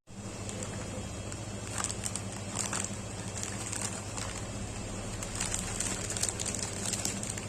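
Plastic snack packaging crinkling and crackling as it is handled, in short irregular bursts, over a steady low hum.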